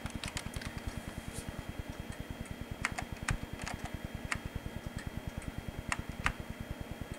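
Computer keyboard keys pressed one at a time, slowly and unevenly: single sharp clicks with pauses between them, over a faint low, steadily pulsing hum.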